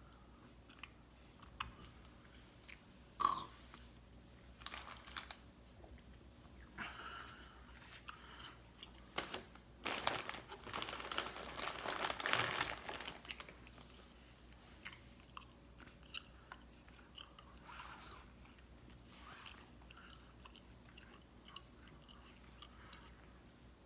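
A person chewing a thick, tough gummy candy with wet mouth clicks and smacks, the chewing busiest for a few seconds near the middle.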